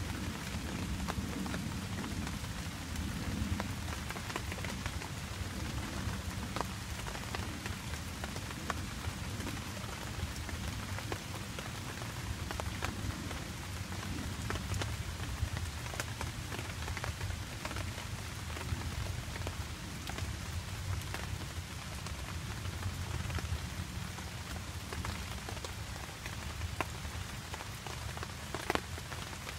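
Steady rain falling on the woods, with scattered individual drops hitting close by as sharp ticks.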